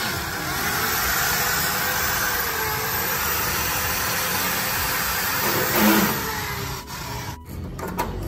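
Cordless drill running under load into the door's aluminum tubular frame, steady for about six seconds, loudest just before it stops, then a few light clicks.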